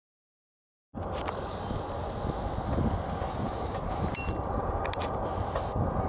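Silence for about a second, then the low, steady rumble of an approaching diesel freight train led by a GE AC44CW locomotive, mixed with outdoor noise.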